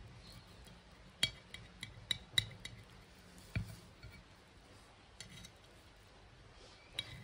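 Metal knife and fork clinking against a ceramic plate while cutting an omelet. There is a cluster of sharp clinks between about one and four seconds in, and one more near the end.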